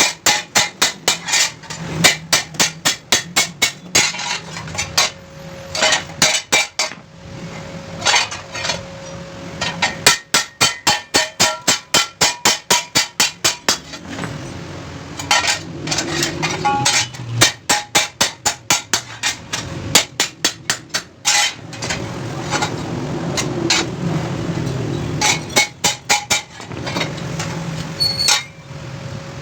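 Hand hammer striking a steel chaff cutter blade in quick runs of ringing metallic blows, about four a second, with short pauses between the runs.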